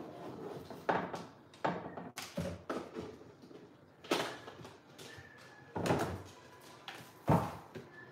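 Knocks and clunks of spice and seasoning containers being set down and shuffled on a wooden kitchen cabinet shelf, about six separate knocks at uneven intervals.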